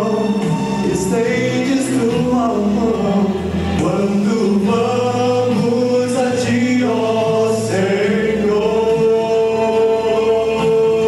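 Male vocal quartet singing in close harmony into microphones, holding long chords that change every few seconds.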